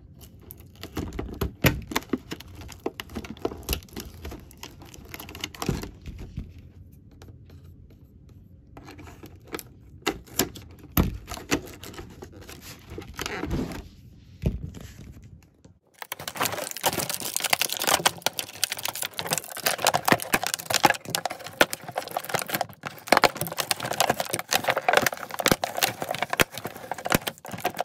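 Tape being peeled and torn from a doll's cardboard box, with the clear plastic packaging crinkling and rustling in irregular snaps. About 16 seconds in, the sound abruptly turns denser and busier, a sped-up run of the same crinkling and tearing.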